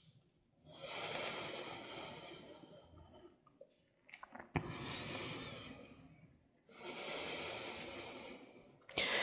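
A woman breathing slowly and audibly: three long breaths of about two seconds each, with a few faint clicks in the pause between the first and second.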